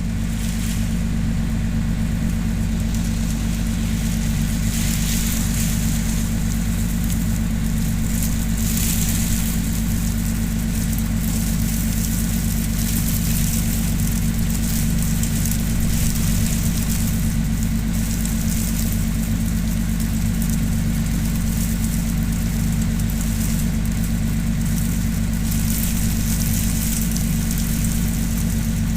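A Schottel-drive boat's engine runs steadily at a low, even speed. Over it, a squall's wind and rain rush in gusts that swell and ease, most strongly about 5 to 10 seconds in and again near the end.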